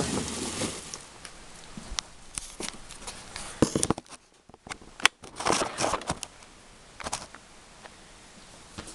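Handling noise as a camera is moved about and set down on a paper-covered workbench: scattered small clicks, knocks and rustling. After a short lull about four seconds in, there is more rustling and a few knocks.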